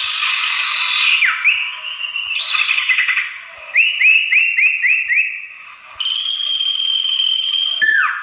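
Common iora (sirtu) calls played as a lure recording. Harsh chattering comes first, then a quick run of five short notes, then one long steady whistle of about two seconds that ends in a sharp falling note.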